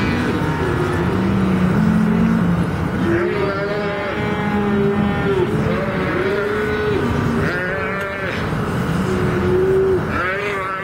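Calves bawling in a branding pen, several at once, their long calls overlapping with hardly a break.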